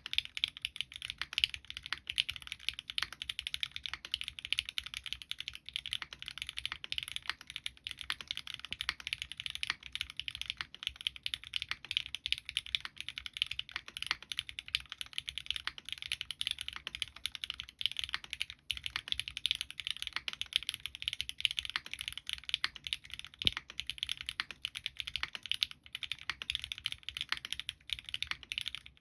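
Continuous fast typing on a custom mechanical keyboard: SingaKBD Kohaku with lubed Gateron Ink Black V2 linear switches on an aluminium plate, with GMK Kitsune keycaps. It is a dense, even stream of key clacks.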